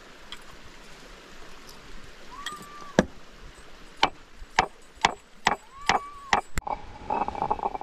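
Sharp knocks of a hammer driving the wooden handle into the upper stone of a hand quern, about eight blows roughly two a second and quickening toward the end, starting about three seconds in. Two short high tones fall between the blows.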